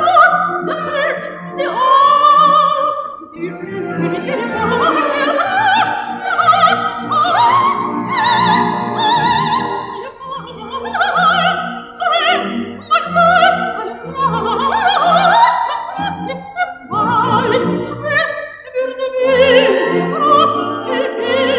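Operatic singing: a voice with strong vibrato over sustained instrumental accompaniment, in phrases with short breaks between them.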